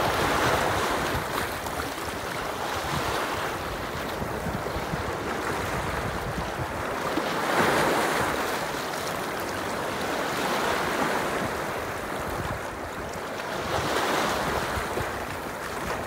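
Lake Superior waves breaking and splashing over dark rock ledges at the shoreline, the surf rising and falling as each wave comes in. Some wind rumble on the microphone.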